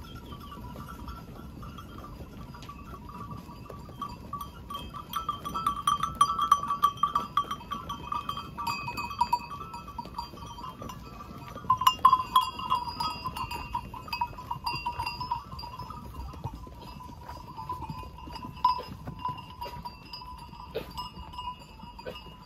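A large flock of sheep on the move, calling, with a steady jangle of bells and many small clanks and knocks. It grows louder around six seconds in and again around twelve seconds in.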